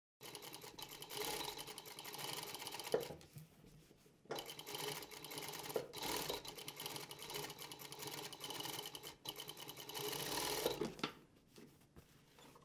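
Jack 9100BA industrial single-needle lockstitch machine sewing a curve in two runs. It stops briefly about three seconds in, starts again, and stops near the end.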